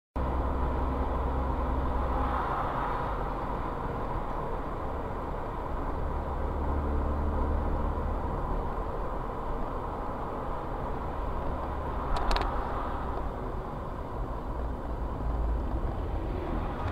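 Steady engine and tyre rumble of a car driving on a road, heard from inside the car. There is a short click about twelve seconds in.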